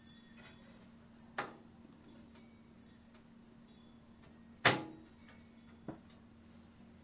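Three knocks of a motherboard and metal PC case being handled as the board is set in place: a moderate clunk, then a much louder one with a brief metallic ring, then a small tap.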